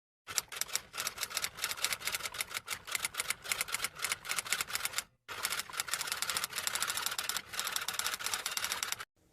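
Typing sound effect: a rapid, uneven run of key clicks, with a brief break about five seconds in.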